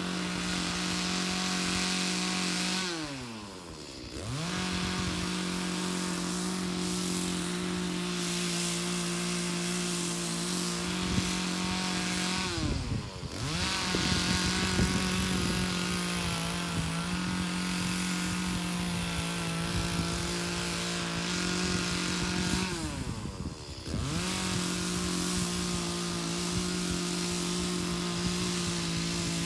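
Two-stroke chainsaw running at high revs while cutting logs. Three times the engine speed falls sharply and then climbs back up.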